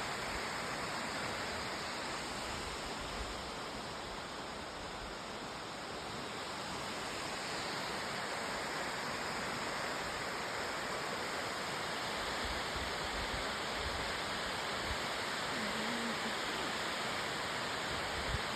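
Water rushing steadily in heavy flow, a constant roar of fast-moving water, with a few brief low thumps.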